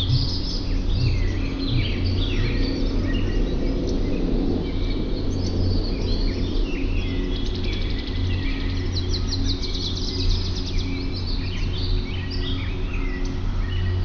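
Birds chirping and trilling, many short high calls with a few rapid trills, over a steady low hum.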